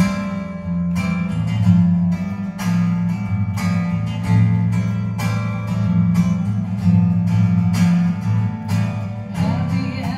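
Acoustic guitar strummed in a steady rhythm through the hall's sound system: an instrumental passage of a live song, a strum stroke about every 0.7 s over ringing chords and bass notes.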